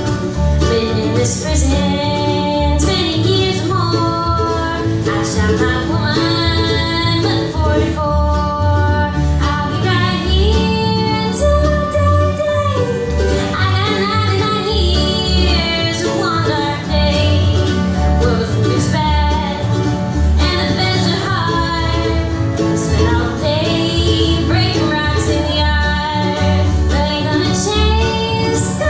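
Live bluegrass band: a woman sings lead while playing mandolin, backed by two acoustic guitars, a fiddle and an upright bass. The bass keeps a steady beat.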